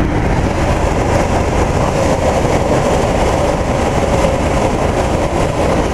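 Goodman heat pump system's fan running: a steady, even rushing of moving air over a low rumble.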